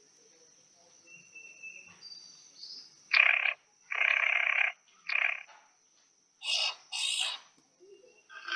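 A series of short, harsh animal calls: three in quick succession about three seconds in, then two higher-pitched ones a second later, after a few faint thin chirps.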